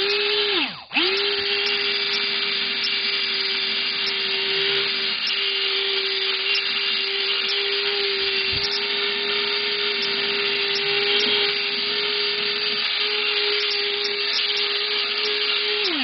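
Small electric blower running, a steady motor whine with a rush of air, blowing metallic particles out of a microwave's interior. It spins up, cuts out and restarts about a second in, then runs evenly and winds down at the end.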